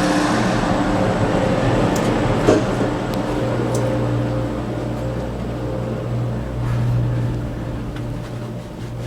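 Cable car running, a steady mechanical hum with a single clunk about two and a half seconds in, slowly fading toward the end.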